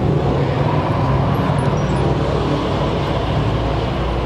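A Weiand-supercharged hot-rod engine idling steadily at close range, a deep, even running note.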